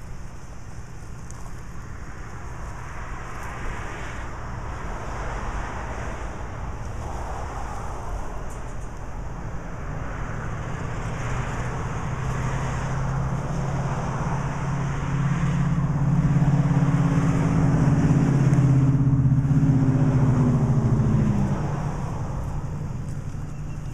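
An engine runs close by and grows louder over several seconds, then its pitch drops and it dies away about twenty seconds in. A steady hum of outdoor traffic noise runs underneath.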